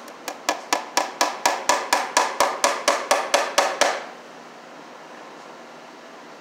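Hammer striking about sixteen quick, evenly spaced blows into wooden wall-stud framing, roughly four a second and growing louder, stopping about four seconds in.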